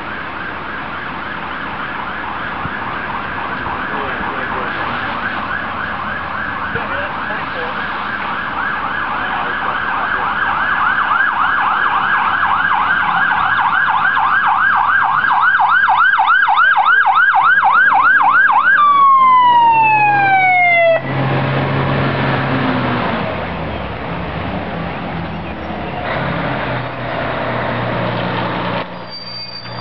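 Fire engine's electronic siren yelping, its fast up-and-down cycles growing louder as the truck approaches. A little past halfway the siren drops in one falling tone over about two seconds and stops. The truck's diesel engine is then heard running as it drives past.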